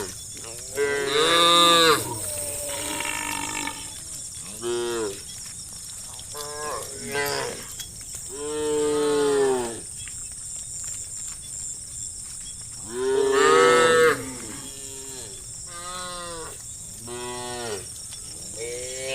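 Cows in a herd mooing again and again, one call after another at different pitches, some overlapping. The loudest calls come about a second in and again about two-thirds of the way through.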